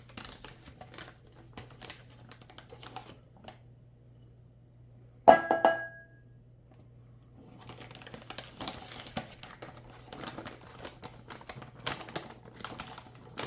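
Kitchen handling while almond flour is scooped and measured with a measuring cup: scattered taps, scrapes and rustles. About five seconds in comes one loud ringing clink, and the taps and scrapes pick up again after a short pause. A steady low hum runs underneath.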